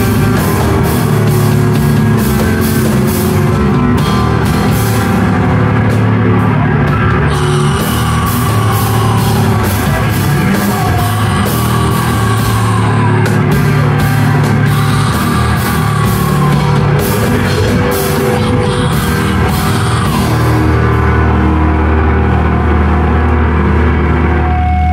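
Live heavy rock band playing loud, with distorted guitars and drums with cymbals crashing. About twenty seconds in the cymbals fall away and a sustained low guitar drone carries on.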